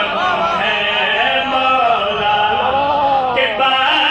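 A man singing a long, drawn-out melodic line of devotional verse through a microphone and loudspeakers.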